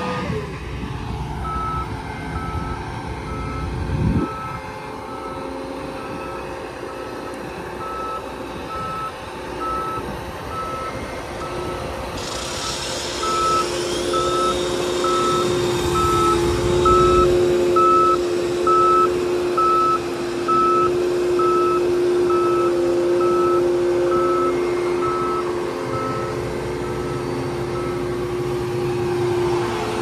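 A John Deere combine backing up, its reversing alarm beeping steadily about once a second over the running engine. It is reversing toward a tow bar to hitch up. The engine grows louder, with a hiss, a little before halfway through.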